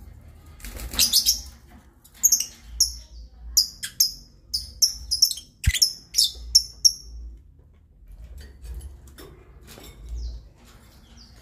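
Lovebirds chirping: a quick run of short, high chirps, several a second, that starts about a second in and stops a little past the middle.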